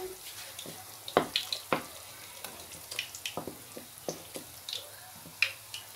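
A metal ladle tapping and scraping against an aluminium cooking pot while simmering kadhi is stirred: a string of light, irregular clinks, the loudest about a second in, over a faint simmering hiss.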